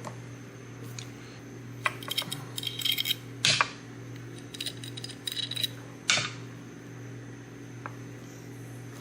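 Sharp metallic clicks and clinks, some in quick clusters, from handling a hand injector and metal lure molds while shooting soft plastic, over a steady low hum.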